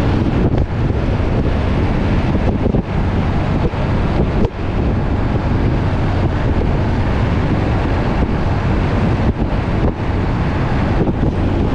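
Wind rushing over the microphone of a truck-mounted camera at road speed, over the low drone of the moving truck. It is a steady, dense noise with a few brief dips.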